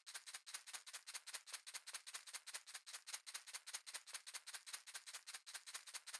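A fast, even shaker rhythm of short, high, hissy strokes, about seven a second, played as a music track.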